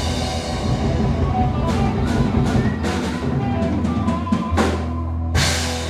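Live rock band's closing bars: a run of drum-kit hits on snare and toms over a held bass and guitar chord, ending on a loud cymbal crash about five seconds in, with the chord left ringing.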